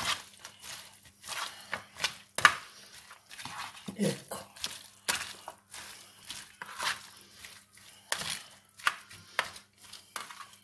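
Hands mixing and squeezing shredded savoy cabbage with tomatoes and oil in a baking tray: irregular rustling, crumpling strokes, about two a second.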